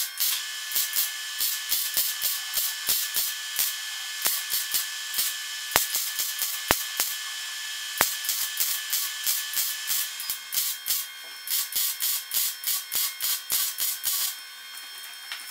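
MIG welder crackling as it lays weld beads on the steel shell of a cracked catalytic converter, pulsing rapidly several times a second; the arc stops near the end.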